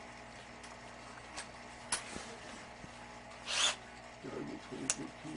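Light handling noises: a few sharp clicks and a short scrape about three and a half seconds in, over a steady low hum, with faint murmured voices near the end.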